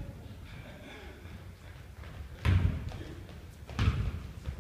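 Basketball bouncing on a hardwood gym floor: two heavy thuds a little over a second apart, past the middle.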